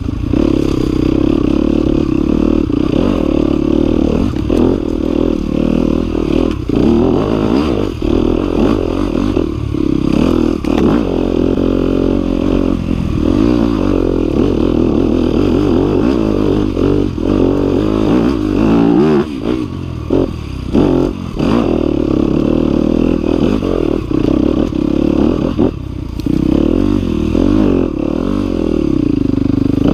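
Single-cylinder four-stroke engine of a 2018 Yamaha WR250F enduro bike, heard up close on the bike, running under constantly changing throttle on a slow forest trail, with brief throttle-offs a little past halfway and again near the end. Clattering from the bike over rough ground runs underneath.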